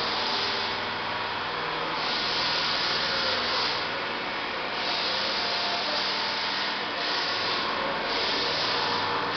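Steady workshop machine noise: a low hum under a hiss that swells and fades every second or so.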